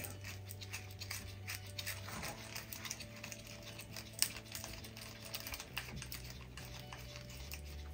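Light, irregular clicking and tapping of a small hand tool working out the hold-down screw of the pinion gear cover on a Redcat Gen 8 V2 RC crawler's plastic chassis, with one sharper click about four seconds in. A faint steady low hum runs underneath.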